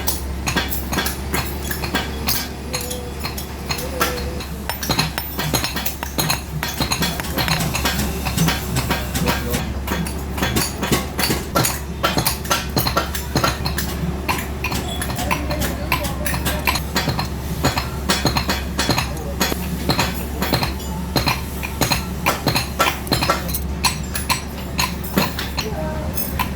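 Hammer striking metal in many quick, light, irregular blows, a metal necklace piece being forged, over a steady low hum.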